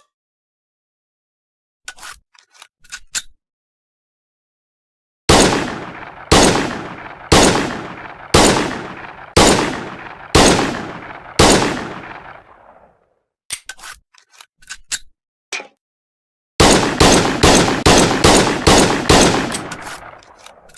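M1911 pistol sound effects: a few short metallic clicks, then seven single shots about a second apart, each with a long ringing tail. More clicks follow, then a rapid string of shots at about three a second.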